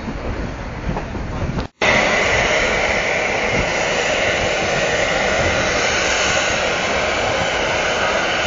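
Rumble and clatter of the moving train, then, after a cut about two seconds in, a loud steady hiss of steam jetting from the side of the Durango & Silverton narrow-gauge steam locomotive as it blows down its boiler.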